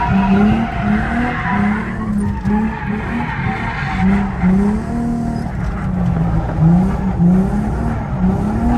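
A car drifting: its engine revs rise and fall again and again while the tyres squeal, the squeal strongest in the first couple of seconds.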